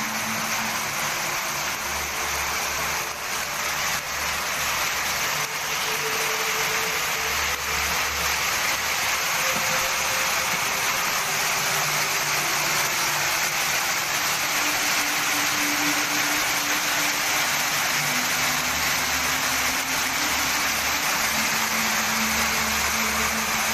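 Hailstorm with heavy rain pelting a paved yard and strong wind: a loud, steady, dense rushing noise.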